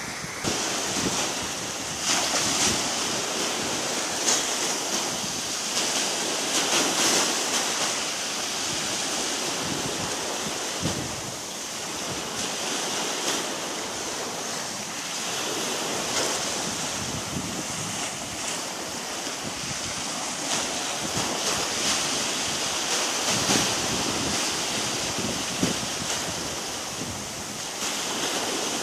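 Small waves washing up and running back over a sandy shore, a continuous hiss of surf that swells and eases every few seconds.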